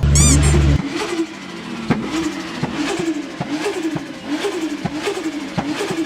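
Turbocharged car engine: a loud burst with falling high-pitched whistles that cuts off sharply under a second in, then running on with a rhythmic chatter and about two sharp pops a second. This is typical of turbo flutter after the throttle closes.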